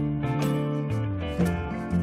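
Background music: a light instrumental tune with plucked, guitar-like notes over a steady bass line.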